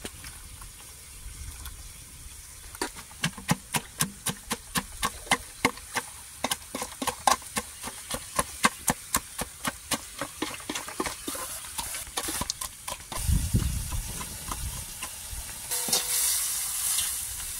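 Quick, even knocks in a metal basin of cut eggplant, about three or four a second for some ten seconds, as a small tin is worked in it by hand. Near the end, vegetables sizzle as they stir-fry in a metal wok.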